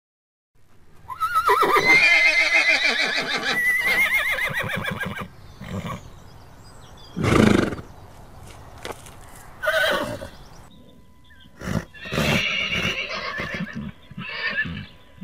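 A horse neighing: a long, loud whinny with a quavering pitch lasting about four seconds, followed by several shorter horse calls.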